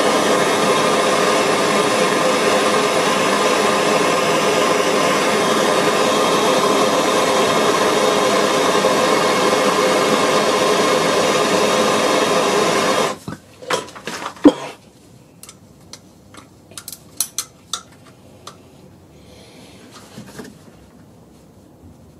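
Handheld gas blowtorch burning with a loud steady hiss, heating a seized bolt to free it; it shuts off abruptly about thirteen seconds in. After it come a few short, light metallic clicks and knocks.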